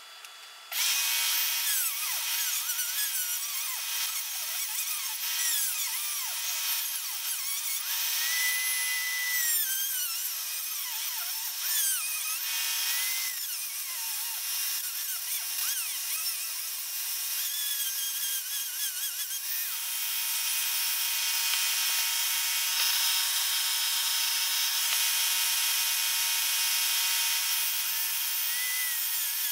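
Handheld rotary tool starting up about a second in and running at high speed, cutting into a plywood frame. Its high whine dips and rises as the bit meets the wood.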